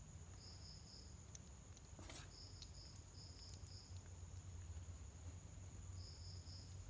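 Faint insect chirping: short high chirps in groups of three or four pulses, recurring every second or so, over a steady high whine and a low rumble, with a single tap about two seconds in.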